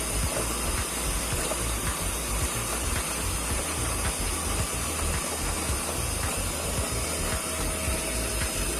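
Steady rushing hiss of water draining out of the washing machine, with an uneven low rumble underneath.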